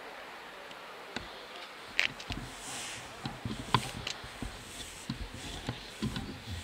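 Outdoor ambience at an amateur football match: steady background noise broken by a few sharp knocks, the loudest about two seconds in and again just before four seconds.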